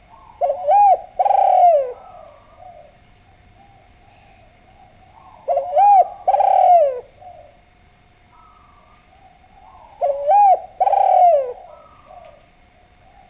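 Spotted dove (derkuku) cooing: three phrases about four to five seconds apart, each a short coo followed by a longer coo that drops in pitch at the end.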